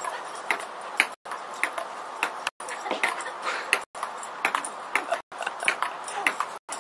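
Ping-pong ball clicking on the table and paddle in a fast rally, about three sharp clicks a second over a steady hiss. The sound is broken by brief silent gaps every second or so.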